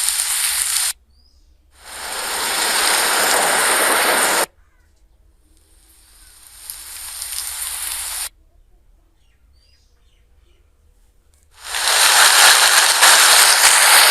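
Rain sound-effect previews played one after another: four stretches of steady rain hiss, each a few seconds long and cut off abruptly, with short silent gaps between; the third fades in gradually.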